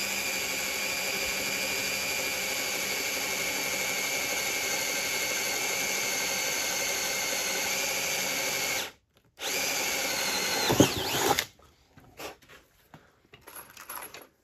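Cordless drill running steadily as it bores a bolt hole through an oak deck board, stopping about nine seconds in. It runs again for about two seconds, its pitch dropping as it winds down, followed by a few light knocks.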